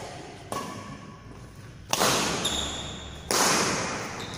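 Badminton rackets striking a shuttlecock three times during a rally, about a second and a half apart. Each hit is a sharp crack that rings on in the large hall, and the second and third are the loudest.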